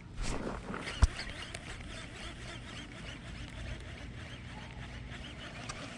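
Baitcasting reel during a cast and retrieve: a swish near the start, a sharp click about a second in, then the reel's steady fine ticking as line is wound in.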